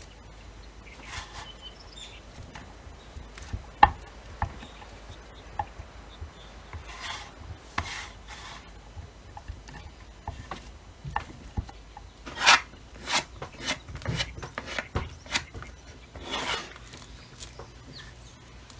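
Plastic bench scraper chopping and smearing cold butter on a wooden cutting board: uneven scraping strokes across the wood, broken by sharp knocks of the scraper edge on the board.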